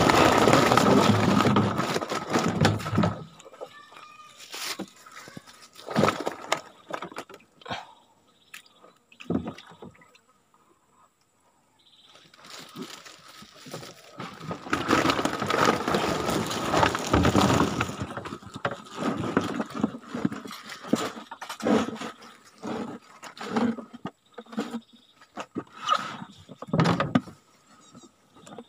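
Water splashing and sloshing as live snakehead fish are moved from a wet burlap sack into a plastic jerrycan of water, in two long bouts. Many sharp knocks come in between and through the second half, as the fish and the jerrycan hit against the wooden boat.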